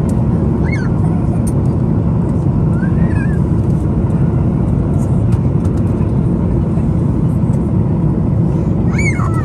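Steady low cabin noise of a jet airliner in flight, the engines and airflow heard from inside the cabin. A few brief high-pitched squeaks cut through it, about a second in, around three seconds in and near the end.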